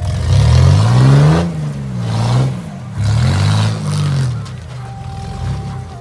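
Rock-crawler buggy's engine revving in short bursts, rising and falling about three times as it climbs a steep rock ledge.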